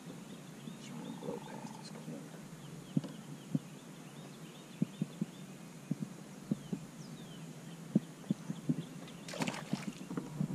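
Light knocks and taps of fishing gear being handled in a kayak, irregularly spaced, over faint high chirping, with a brief rustling burst a little over nine seconds in.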